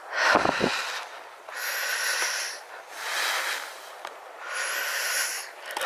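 A person's heavy breathing close to the microphone while walking: about four long, airy breaths, evenly spaced.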